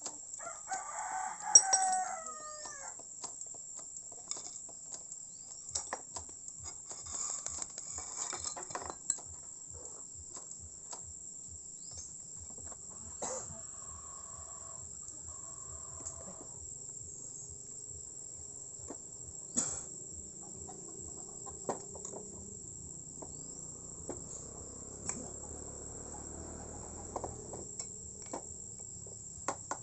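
A rooster crowing once near the start, over the steady high chirring of crickets. Scattered sharp clicks and knocks follow.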